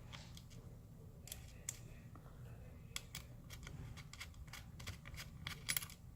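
Scattered small clicks and taps of hardware being handled as a star washer and bolt are fitted to a hinge by hand, a few sharper clicks about three seconds in and again near the end.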